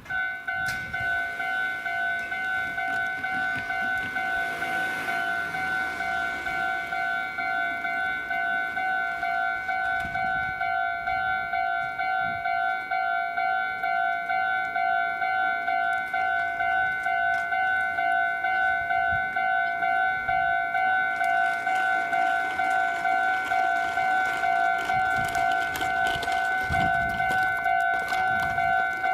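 Japanese railway level crossing's electronic warning bell starting up suddenly and ringing a high tone in a steady, rapid pulse, signalling an approaching train.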